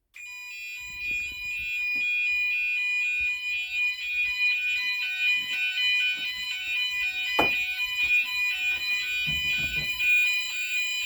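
Fire alarm sounders of a Gent Vigilon system going into alarm after a detector is set off, starting suddenly: an alternating two-tone sounder pattern over a steady high-pitched tone. A single sharp click about seven seconds in.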